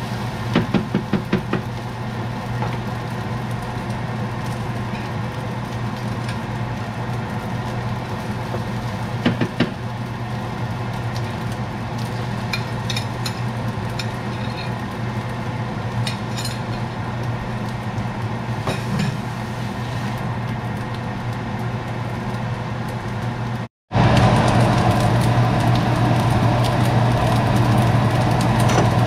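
Steady household appliance hum with scattered clinks and knocks of kitchenware, including a quick run of taps just after the start. After a brief dropout near the end, the hum comes back louder.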